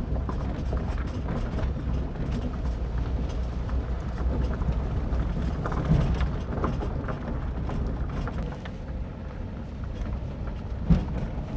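A vehicle on the move: a steady low rumble from engine and road, with frequent small knocks and rattles. Sharper knocks come about six seconds in and again near the end.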